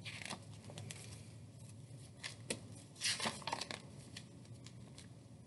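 Printed photographs handled and shuffled in the hands: faint paper rustling and light ticks, with a louder rustle about three seconds in.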